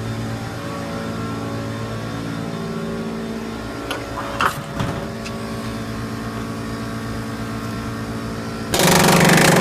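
Ridgid R350PNA pneumatic palm nailer hammering a spiral spike home in a loud, rapid burst of blows, starting about nine seconds in, after a few knocks around four to five seconds in. A steady engine-like drone runs underneath throughout.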